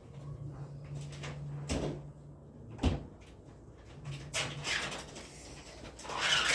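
Cupboard doors opening and closing: a few sharp knocks, the loudest about three seconds in, then two longer scraping noises. A steady low hum runs underneath.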